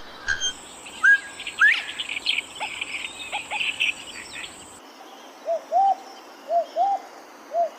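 Bird calls in two spliced clips: first two rising whistles and a stretch of busy chattering over a high, steady insect-like whine, then, after an abrupt change, pairs of short low hooting calls repeating about once a second.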